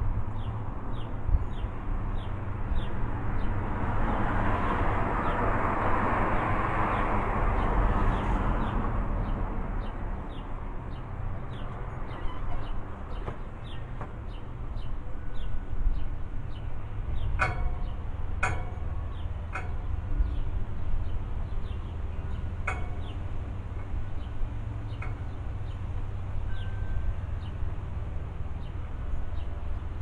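Outdoor ambience with a steady low rumble and faint regular ticking. A swell of noise rises and fades a few seconds in, and a handful of short, sharp animal calls come past the middle.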